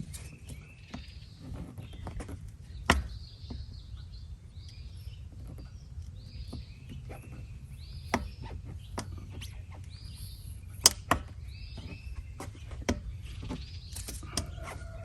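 A small bird chirping over and over against a steady low outdoor background noise, with scattered sharp clicks and knocks. The loudest click is about three seconds in, and a quick pair comes near eleven seconds.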